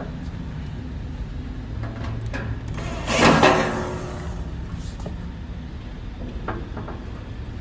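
Cabinet parts being handled during assembly of a slot-machine cabinet: one loud scraping slide about three seconds in, with a few light knocks around it over a steady low background rumble.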